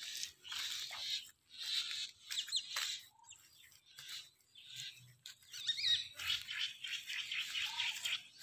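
Footsteps rustling through dry grass and weeds, in patches, with a few short bird chirps.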